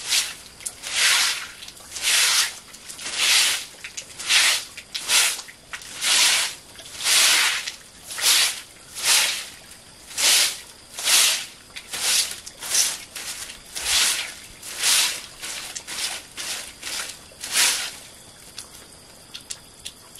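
Handmade broom of bundled dry stems sweeping a tiled concrete floor in steady strokes, about one swish a second. The sweeping stops about two seconds before the end, leaving a few faint small clicks.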